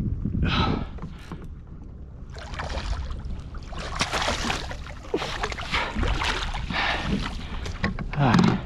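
Water splashing and sloshing beside a kayak as a hooked bull redfish thrashes at the surface near the boat. The splashing starts about two seconds in and goes on in uneven bursts, over a low rumble. A short grunt of breath comes near the end.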